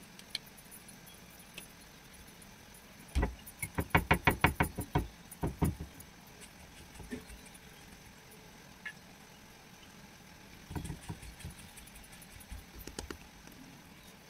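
Hands slapping and patting a ball of whole-wheat tingmo dough on a wooden board: a quick run of about a dozen slaps a few seconds in, then lighter, scattered pats later. Bangles on the wrists clink faintly with the strikes.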